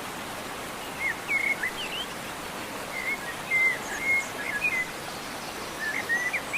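Songbird singing short phrases of quick whistled, slurred notes, in three bursts about a second in, around the middle, and near the end, over a steady outdoor hiss of rain or running water.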